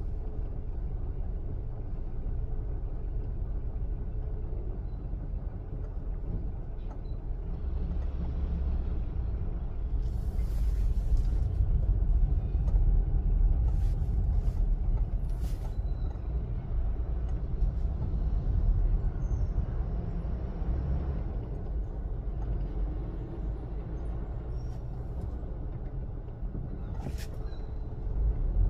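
Steady low rumble of a car's engine and cabin, heard from inside the car as it idles and creeps forward in a toll-plaza queue. It grows louder for a stretch in the middle, and a few soft clicks come through.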